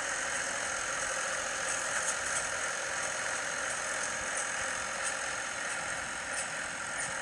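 Farm machinery engine running steadily, an even drone with a few faint light clicks.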